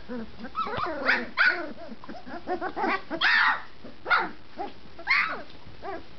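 A litter of 20-day-old puppies giving short, high barks and whines, many calls overlapping in a quick string, the loudest about three seconds in; the pups are just finding their voices and learning to bark.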